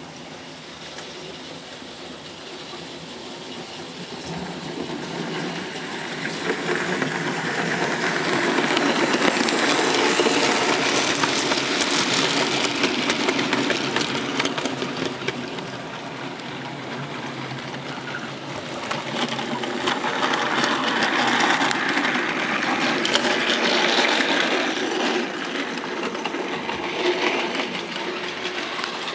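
OO gauge model train running on the layout's track: small electric motor whirring and wheels rattling on the rails. It grows louder over the first ten seconds, eases off, and swells again later.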